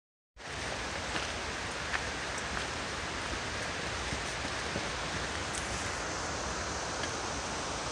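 Steady rushing of a mountain creek, starting abruptly about a third of a second in, with a few faint ticks over it.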